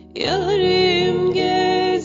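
Music: a slow song whose wavering melody comes in a moment after a brief dip, over held low notes.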